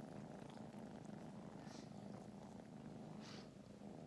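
Kittens purring steadily close to the microphone, a low rough rumble, with two faint breathy puffs about halfway through and near the end.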